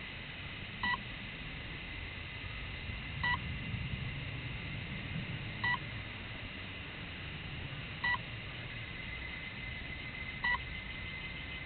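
Short electronic beeps repeating about every two and a half seconds, five times, from the crashed RC wing's onboard electronics, sitting over a steady faint hiss and thin high tone.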